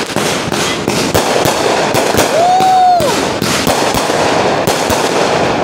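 Street fireworks going off close by: a rapid, uneven run of sharp bangs and crackles over a continuous noisy din, with a single rising-then-falling whistle about halfway through.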